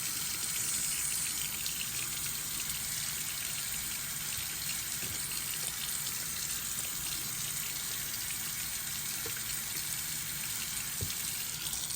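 Faucet running in a steady stream of rushing water, with water leaking out around the faucet body: a sign of worn O-rings.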